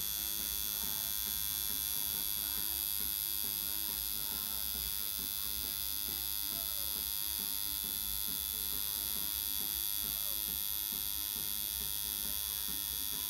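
Electric tattoo machine buzzing steadily as the needle works ink into skin.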